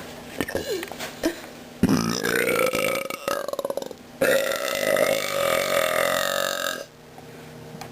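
A person burping on purpose: two long, drawn-out burps in a row, the first starting about two seconds in and the second following straight after it.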